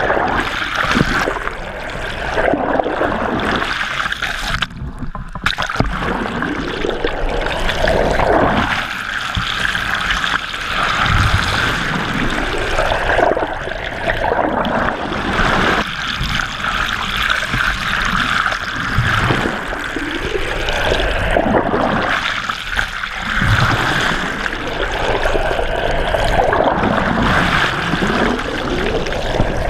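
Steady rush and gurgle of seawater streaming past an underwater camera's housing as it is towed through the sea from a moving boat.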